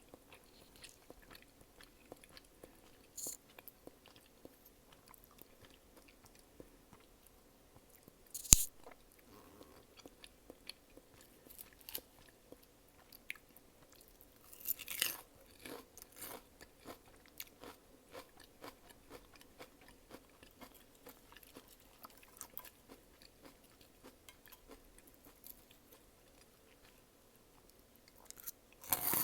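Close-miked chewing and biting of food, with crunchy bites and irregular sharp mouth clicks throughout. There is one very loud sharp snap about eight seconds in and a flurry of louder crunching around fifteen seconds.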